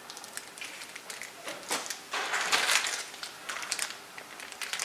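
Small plastic bag crinkling and rustling as it is handled, with scattered clicks; loudest about two to three seconds in.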